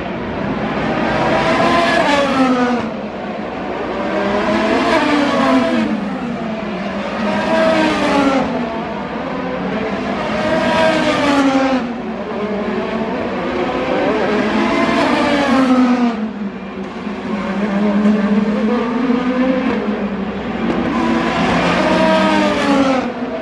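IndyCars, each powered by a 2.2-litre twin-turbocharged V6, passing one after another, with a new car going by about every three seconds. Each car's engine note swells and fades as it passes, its pitch sweeping up and down through the gear changes.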